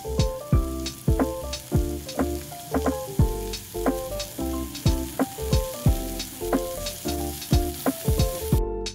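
Beef and vegetables sizzling on a yakiniku tabletop grill plate, a steady hiss that cuts off suddenly near the end. Piano background music with a steady beat plays throughout.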